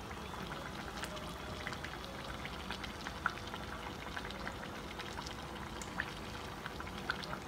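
Samosas deep-frying slowly in oil on a low flame: a steady, gentle sizzle with scattered small pops and crackles.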